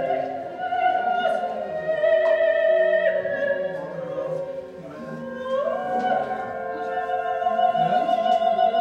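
High singing voice holding long notes in an operatic style, gliding up into a new held note about halfway through.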